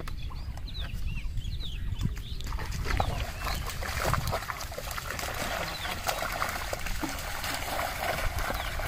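Water pouring and dripping from a square bamboo-lever lift net as it is hauled up out of flood water, with fish thrashing and splashing in the bottom of the net. The splashing starts about two and a half seconds in and goes on steadily after that.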